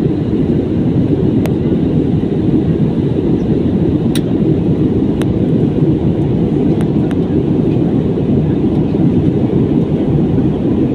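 Steady airliner cabin noise in flight: an even, low rumble of engines and airflow, with a few faint clicks.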